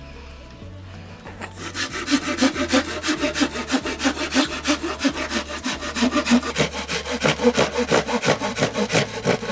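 Hand saw cutting wood in quick, even back-and-forth strokes, starting about a second and a half in, with background music underneath.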